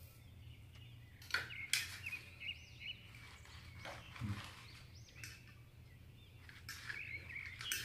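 Faint bird chirps from outside over a low steady hum, with a few sharp clicks and knocks as a metal fork and a plate of fishballs are handled.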